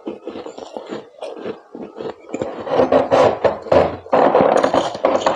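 Thick freezer frost being scraped off with a utensil: a quick series of short crunchy scrapes, growing louder and more continuous from about halfway in.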